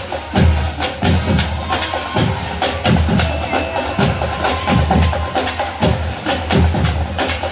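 Marching band playing, led by drums and percussion with a steady beat.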